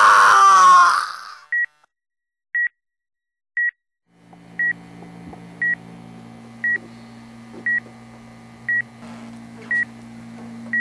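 A man's scream, cut short about a second in. Then an electronic heart-monitor beep sounds once a second, a single high tone each time, over a low steady hum for an injured man in bed.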